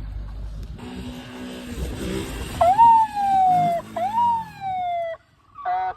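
A person's voice imitating a police siren: two wailing calls, each jumping up quickly and then sliding slowly down in pitch. A low rumbling hum comes before them.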